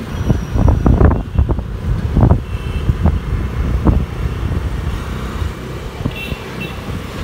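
Two-wheeler riding through street traffic: a steady low engine and road rumble, with irregular low buffeting of wind on the microphone, strongest in the first few seconds.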